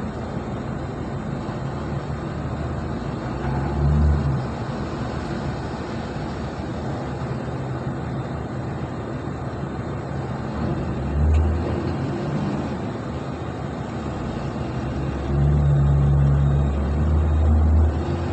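Diesel engine of a container reach stacker running, revving up briefly twice and then for about two seconds near the end as it sets down a container and lifts its empty spreader.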